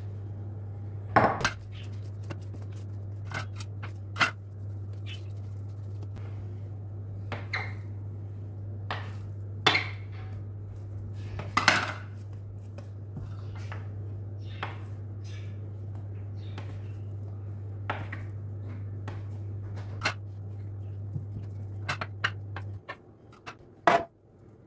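Kitchen dishes and utensils clinking and knocking now and then, over a steady low hum that stops near the end.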